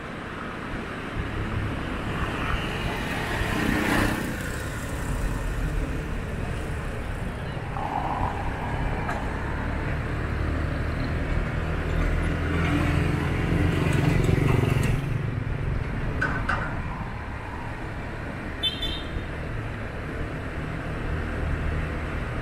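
Town street traffic heard from a moving car: a steady engine and road hum, swelling louder about four seconds in and again around thirteen to fifteen seconds in, with a brief high squeak near the end.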